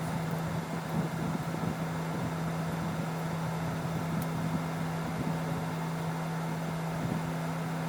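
Steady low machine hum over a constant background noise.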